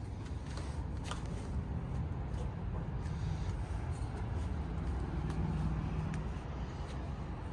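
Low, steady rumble of distant city traffic heard from high above, with a brief low engine hum about five seconds in.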